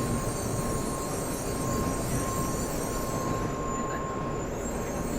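Shinkansen train rolling into a station platform: a steady rumble and hiss, with the high hiss falling away about three and a half seconds in as the train slows, under a thin steady high tone.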